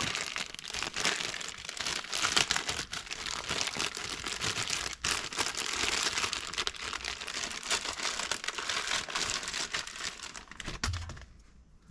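Packaging crinkling, crumpling and tearing as a new replacement part is unwrapped by hand, in a steady run of crackles that stops about eleven seconds in.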